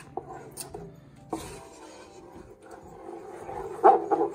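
Thick black mole sauce bubbling in a pot: a faint simmer, then a quick run of loud, wet plops near the end as fat bubbles burst at the surface. The sauce is "good and splooty".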